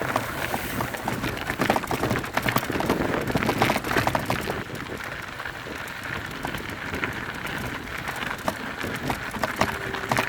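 Mountain bike rolling down a rough dirt trail: tyres crackling over dirt and stones, with a steady run of sharp rattles and clicks from the bike, busiest in the first half.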